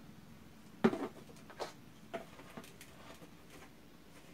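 Plastic bottles being handled on a table: a sharp knock about a second in as a bottle is set down, then several lighter plastic clicks and taps as the glue bottle is handled and its cap pressed shut.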